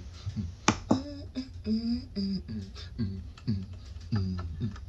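A man beatboxing: sharp mouth clicks and short vocal notes that drop in pitch, in a rhythm of about two a second.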